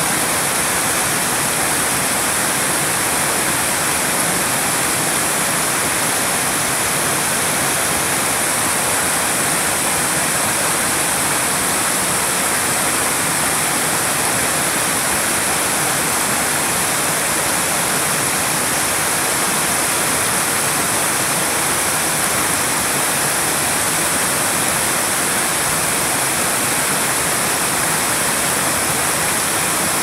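Waterfall and stepped stone cascade, water pouring and splashing in a steady rush.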